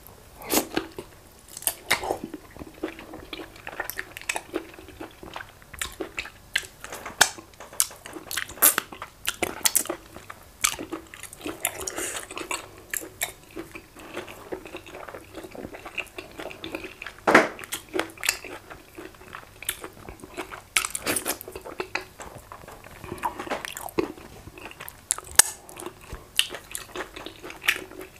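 Close-miked wet chewing, biting and lip smacking of a person eating goat meat in efo riro vegetable soup with fufu by hand. Irregular sharp smacks and clicks come throughout, the loudest a little past halfway.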